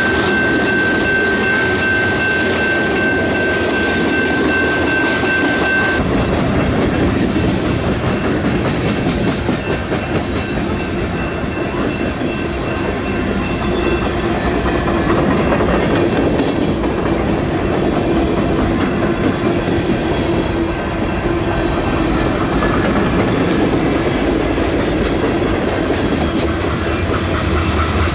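Freight cars (tank cars and covered hoppers) rolling past, their steel wheels clacking over the rail joints with a steady rumble. A thin high whine sounds for the first several seconds and cuts off suddenly.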